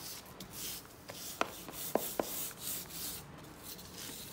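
Hands rubbing coloured sand into the sticky areas of a sand-painting board: a scratchy rubbing in repeated strokes, with a few light clicks in the middle.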